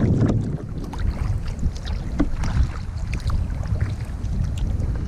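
Kayak paddling on open water: small splashes and drips from the paddle blades, with wind rumbling on the microphone throughout.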